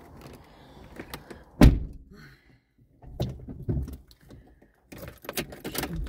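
A single heavy thunk inside a car cabin about a second and a half in, then a few light clicks and knocks of movement near the end.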